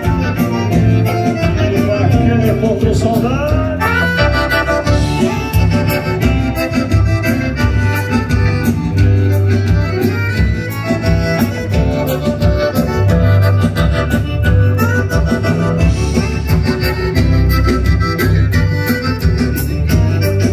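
A live gaúcho dance band playing fandango music: an accordion carries the melody over guitars, a bass line and a steady dance beat.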